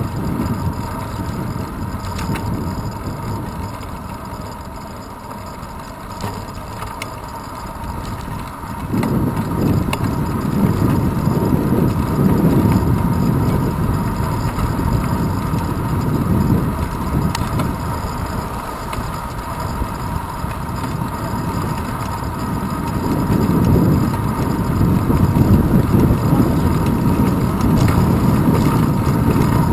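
Wind buffeting and road rumble picked up by a handlebar-mounted camera on a moving bicycle. It grows louder about nine seconds in and swells again near the end.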